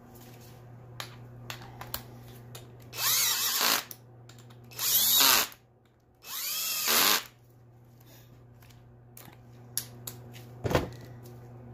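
Cordless drill/driver with a half-inch socket running in the three cam-sprocket bolts on a small-block Chevy 350. The motor runs three times, each burst just under a second and winding down in pitch as the bolt snugs up. Small clicks of the socket and bolts come between the bursts.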